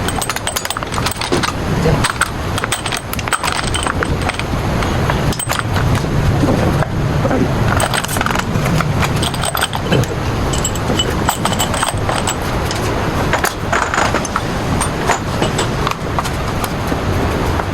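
Repeated sharp metallic clinks and knocks, like hand tools and metal parts being handled, over a steady low rumble.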